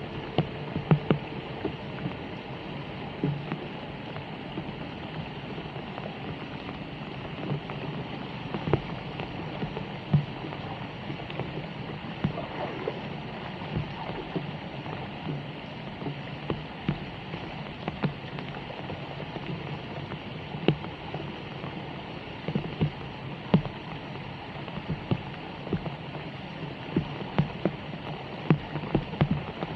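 Steady rain falling on a flooded street, with water running along the gutter, broken by frequent irregular sharp taps and splashes.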